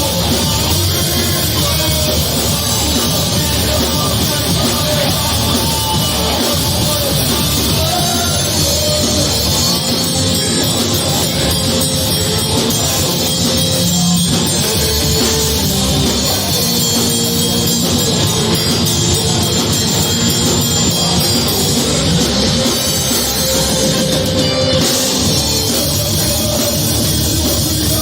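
A rock band playing heavy metal live, loud and without a break, drums included.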